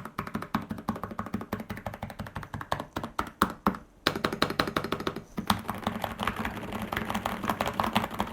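Rapid typing on an Epomaker RT100 mechanical keyboard fitted with Epomaker's own hot-swappable switches, with a short pause about four seconds in. The keystrokes are subtle and not clicky, much like red linear switches.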